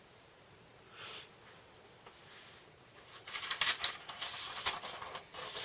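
Paper record sleeves rustling as vinyl LPs are handled and swapped: a brief rustle about a second in, then continuous rustling and scraping from about three seconds in.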